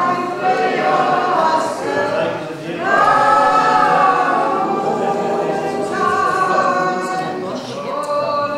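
A church choir singing an Orthodox liturgical chant a cappella, several voices on long held notes that move together.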